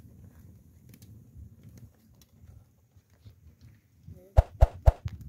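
A low background rumble with a few faint clicks, then four sharp knocks in quick succession near the end.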